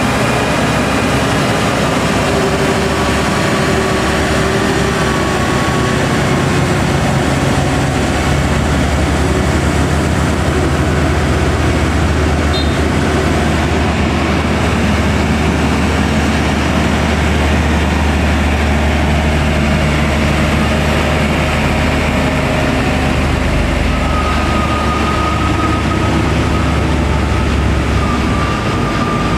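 Heavy diesel truck engine pulling uphill under load. It is a steady deep hum, fullest through the middle and easing slightly near the end.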